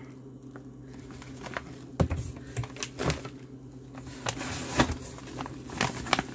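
Plastic MRE meal pouches being handled in a cardboard box: a few knocks and thumps as a pouch is set down and the box is reached into, then rustling and crinkling as the next pouch is pulled out near the end.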